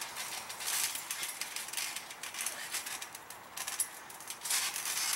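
Loose thumbtacks rattling and scraping on a trampoline mat as the wrestlers shift their feet and a kendo stick drags through them, over a steady outdoor hiss.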